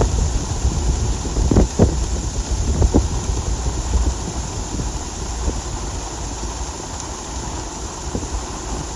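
Strong wind buffeting the microphone: a loud, gusty low rumble with a few sharp thumps in the first three seconds, easing somewhat after that.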